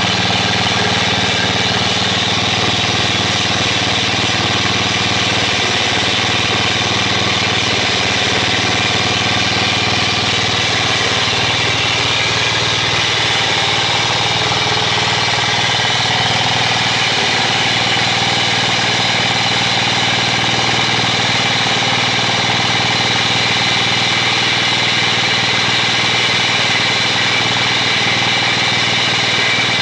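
Engine-driven core drill running steadily under load as its water-fed bit cuts an 8-inch hole in concrete.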